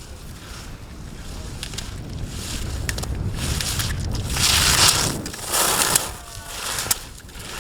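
Skis scraping and hissing over hard-packed snow, with wind rushing over the microphone. The sound builds steadily and peaks in two loud hissing skids about four and a half and five and a half seconds in, then eases off.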